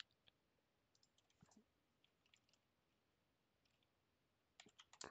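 Near silence with a few faint, sharp clicks from a computer mouse and keyboard, and a quicker run of clicks near the end.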